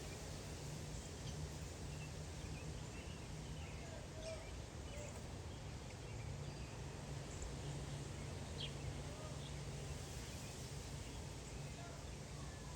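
Faint, scattered bird chirps over steady background noise with a low hum.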